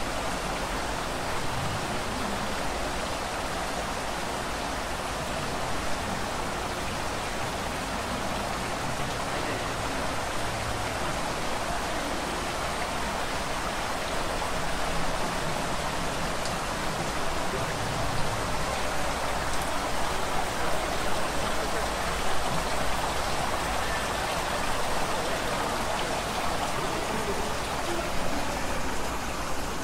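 Water from a park fountain and reflecting pool splashing and running with a steady hiss, a little louder in the second half.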